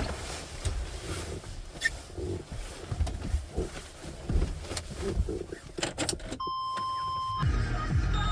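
Clunks, clicks and rustles of someone moving about in a vehicle, then a steady electronic beep lasting about a second near the end.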